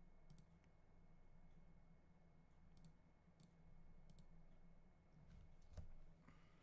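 Near silence: room tone with a low hum, a few faint, sharp clicks and a soft thump near the end.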